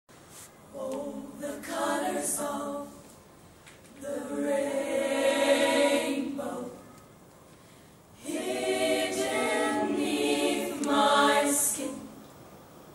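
Women's choir singing a cappella, in three long phrases with short pauses between.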